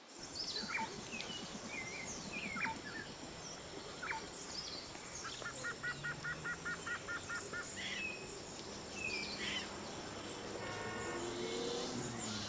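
Birds calling over a forest ambience: scattered chirps and whistles, including a quick trill of about a dozen notes around six seconds in. A low steady hum runs underneath in the second half.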